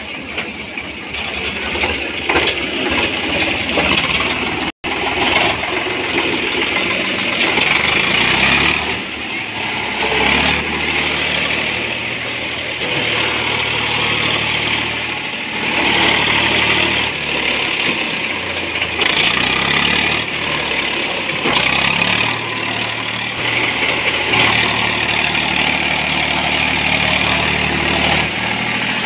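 Tractor diesel engines running under load, the engine swelling and easing off in loudness, as one tractor tows another out of the mud. The sound cuts out briefly about five seconds in.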